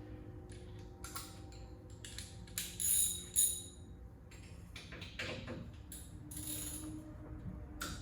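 Metal hand tools and sockets clinking and jingling in several separate bursts while exhaust fasteners are being worked loose, with the loudest ringing clinks about three seconds in.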